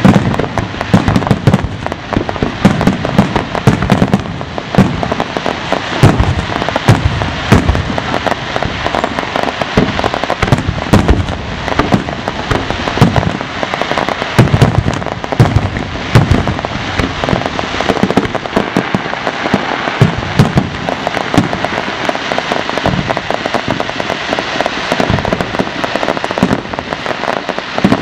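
Fireworks display with a continuous barrage of shells bursting, dense rapid bangs and crackling with many loud reports.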